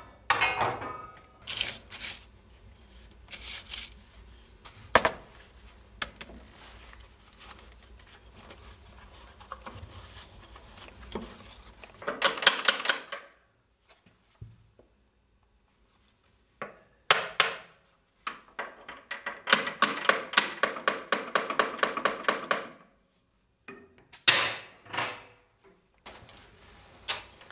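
Metal knocks and scraping as coke ash is cleared out of a small steam locomotive's ash pan with hand tools: scattered single knocks, a short rattling burst about halfway, and a fast run of rapid taps for about three seconds later on.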